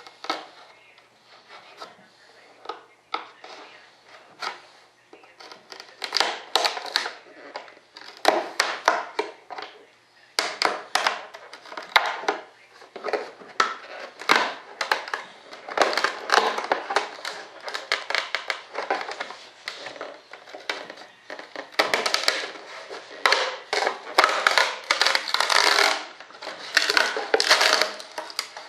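Irregular crunching, cracking and scraping of a composite part being cut out for a landing-gear opening. It is faint at first and comes in loud, dense bursts from about six seconds in.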